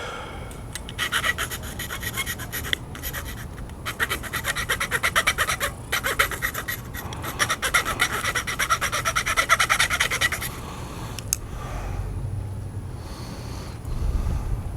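A file rasping back and forth on the metal tip-top guide of a fishing rod, cutting through it to get the broken tip off. The strokes come quickly and evenly in three spells with short pauses between.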